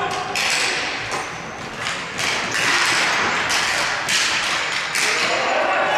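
Ball hockey play: repeated knocks, taps and thuds of sticks and the ball, with a louder wash of noise building about halfway through.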